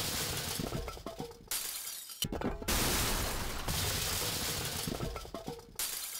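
Crashing, shattering noise of breaking, tumbling hard debris with scattered clinks. It comes in repeated bursts, each starting suddenly and fading over a couple of seconds, with a brief break of near silence between them, once near the middle and again near the end.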